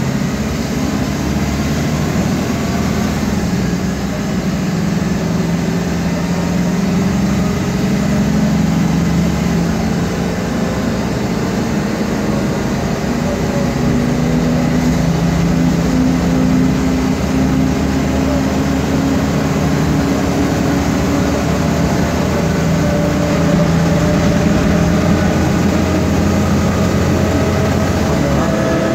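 Inside a 2008 MAN Lion's Classic CNG city bus under way: steady engine and drivetrain noise with a whining tone that climbs slowly in pitch in the second half. The noise is from a noisy differential behind the ZF Ecomat gearbox.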